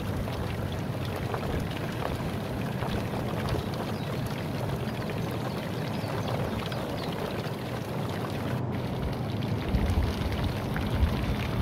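Steady rain patter with a low hum underneath; low rumbles of wind on the microphone near the end.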